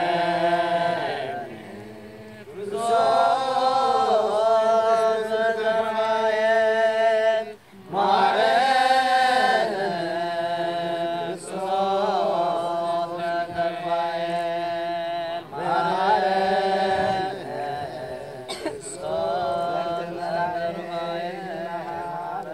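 One voice chanting a prayer solo, in long melodic phrases that hold and bend each note, with short breaks between the phrases.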